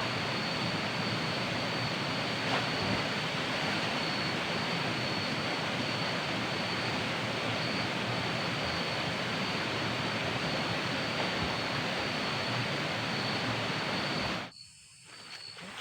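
Waterfall rushing, a steady even roar with a steady high-pitched whine over it. Near the end it cuts off abruptly, leaving a much quieter background with a few light clicks.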